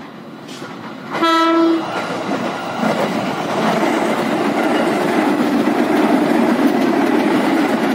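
JR 205 series electric commuter train sounding one short horn blast about a second in, then running past close by, its wheel and rail noise rising and staying loud as the cars go by.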